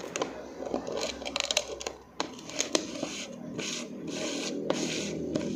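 Clear plastic cookie jar being handled: its plastic lid scraping and rubbing against the jar, with scattered sharp clicks as it is pressed shut.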